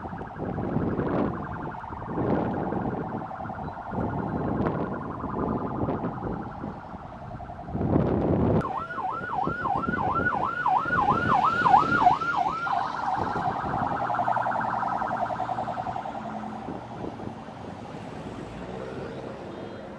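Motorcade escort sirens sounding as the convoy drives past, over the noise of passing vehicles. About halfway through a siren switches to a fast yelp, rising and falling about three times a second for some four seconds, then goes back to a steadier tone.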